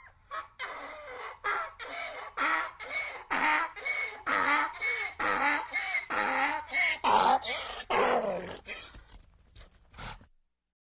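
Donkey braying: a fast run of rasping hee-haw breaths, about two a second, weakening into short wheezes and cutting off abruptly about ten seconds in.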